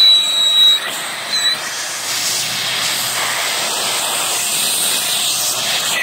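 Vacuum brake bleeder running on a scooter's rear caliper, a steady hiss of air and fluid being drawn through the bleeder hose, with a high whine briefly at the start and again about a second and a half in.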